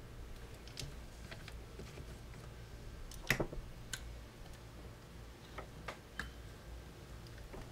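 Scattered small clicks and ticks of an Allen wrench working the action screws of a rifle's plastic stock, with hands handling the stock; the sharpest click comes a little past three seconds in.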